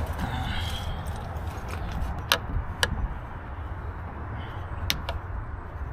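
Flat-blade screwdriver prying a small plastic cover off a van's outside door handle: three sharp clicks, two about two and a half seconds in, half a second apart, and one near five seconds, over a steady low rumble.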